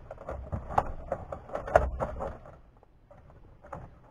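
Scattered light clicks and knocks of plastic dash trim around the instrument cluster being handled and pressed into place by hand, going quieter for about a second near the end.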